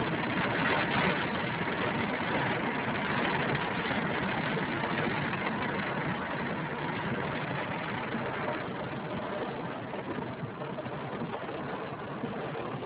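Car driving in heavy rain, heard from inside the cabin: a steady hiss of rain and tyres on the wet road over the engine, easing a little near the end.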